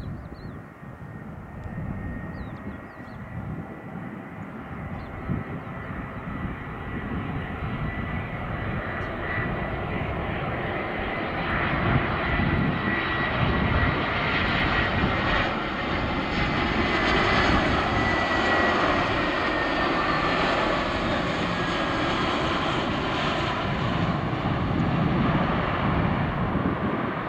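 Airbus A320 airliner on landing approach: the jet engines' noise grows steadily louder as it nears, then holds. A thin high whine runs through it and drops slightly in pitch as the aircraft passes.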